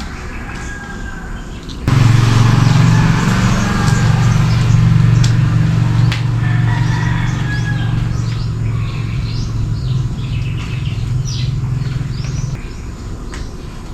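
Small birds chirping over a loud, steady, low machine hum. The hum starts suddenly about two seconds in and stops shortly before the end.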